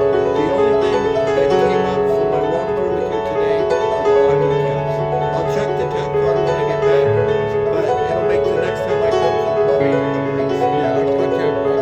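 Background piano music with sustained chords and a slowly moving bass line.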